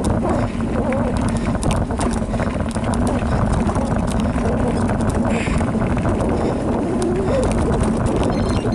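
Specialized Rockhopper Comp mountain bike rolling down a rocky dirt trail: a steady rumble of tyres and wind, with constant rattling clicks from the bike and loose stones.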